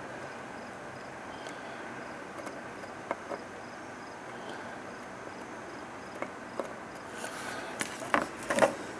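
Steady background hiss with a few small clicks, then a cluster of sharper clicks and rustling near the end: handling of tools and parts on a workbench during soldering.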